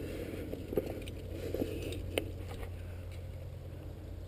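Faint scrapes and a few light clicks as a rock climber moves hands and feet on limestone, with his gear clinking, over a steady low rumble.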